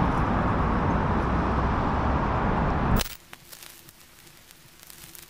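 Dense outdoor street noise with traffic, heaviest in the low end. About three seconds in it cuts off suddenly and gives way to faint crackling static with scattered clicks.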